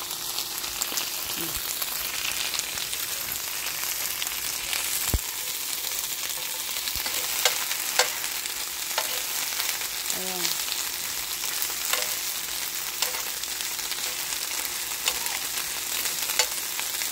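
Bok choy and garlic sizzling steadily in an oiled ridged grill pan, with sharp clicks of a metal fork tapping and scraping the pan now and then as the greens are turned.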